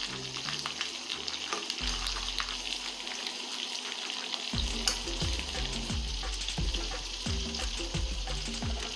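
Potato-stuffed pointed gourds (parwal) sizzling as they fry in hot mustard oil, with scattered clicks of a utensil against the pan as they are turned. Background music with low notes runs underneath and takes up a steady beat about halfway through.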